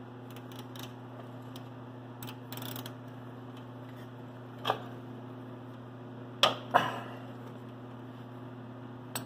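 Ratchet wrench with a socket extension clicking and clinking against the engine's oil drain plug as it is worked loose, with scattered short clicks and two louder clacks about six and a half seconds in. A steady low hum sits underneath.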